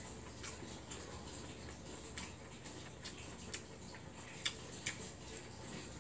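A person eating noodles with chopsticks: a scattered handful of light clicks and smacks from chewing and the chopsticks, over a faint steady background hum.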